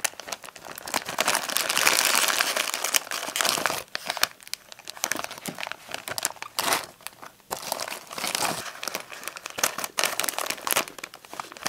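Lay's foil crisp packets crinkling and rustling as they are handled and squeezed, with a long, loudest stretch of crackling from about one to four seconds in, then on-and-off crinkles.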